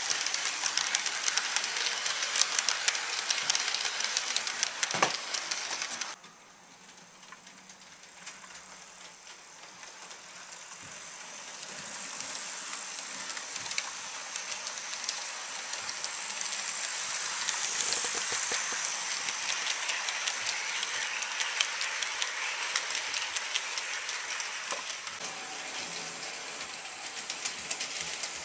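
HO scale model passenger train, an E8 diesel with its coaches, running on the layout track: a steady whirring rattle with many fine clicks from the wheels on the rails. It is loud and close for the first six seconds, cuts abruptly quieter, then grows steadily louder as the train approaches.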